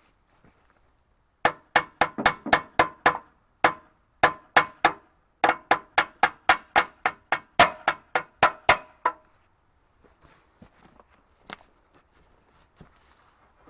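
Repeated hammer blows, about two dozen sharp strikes in quick runs of three to four a second, each ringing briefly, stopping about nine seconds in.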